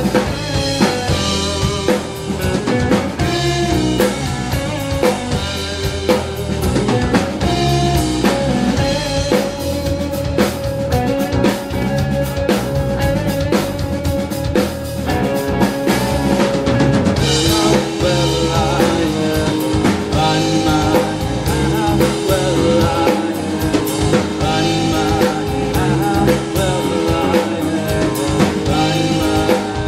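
Live rock band playing an instrumental passage: a drum-kit beat with electric guitar over it, the part changing a little past halfway.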